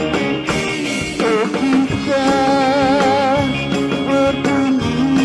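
Live band playing an upbeat dance number in an instrumental break, with a steady beat under it. About two seconds in, a lead instrument holds a long note with vibrato for over a second.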